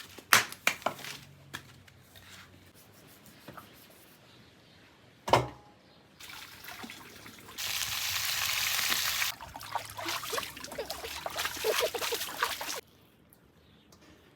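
Water being poured and splashing: a steady pour for about two seconds, then irregular splashes and drips that stop suddenly. Scattered clicks come before it, with one sharp knock about five seconds in.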